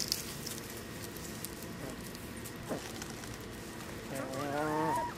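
Hens foraging in straw: a few faint scattered pecks and scratches, then near the end one drawn-out, wavering hen call lasting about a second.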